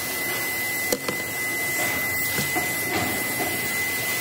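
Steady factory machinery noise: an even hiss with a constant high-pitched whine running through it, and a single sharp knock about a second in.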